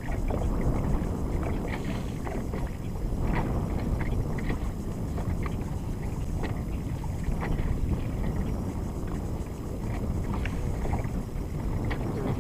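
Steady wind noise buffeting the microphone aboard a small fishing boat, with scattered light knocks and clatter.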